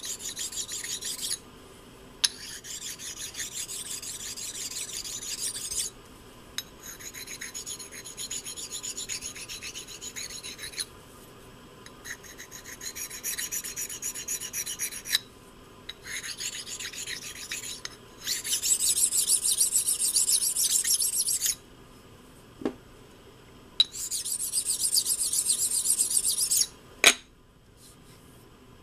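Sharpening stone rubbed back and forth by hand along a steel clamp jaw, in bouts of rapid strokes a few seconds long with short pauses between, stoning the freshly ground jaw faces smooth and free of burrs. Two sharp knocks come near the end.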